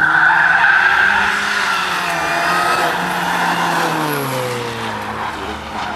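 Car being driven hard in a drift run, engine revving and tyres squealing. The squeal is loudest at the start. The engine pitch rises and falls, then drops away as the car passes close by, and it grows quieter toward the end.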